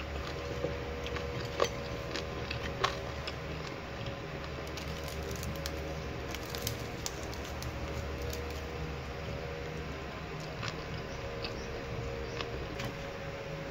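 Crispy skin of deep-fried chicken crackling and tearing as the pieces are pulled apart by hand, in scattered small crackles and clicks over a steady low hum.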